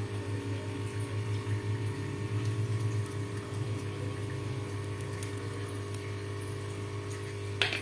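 Pan of pulao water with rice, potatoes and peas boiling on a high flame, an uneven bubbling over a steady low hum.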